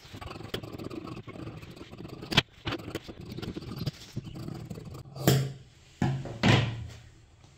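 Scissors cutting through folded cloth around a lining pattern: a steady crisp rasp of snips, with three louder short sounds about two, five and six and a half seconds in.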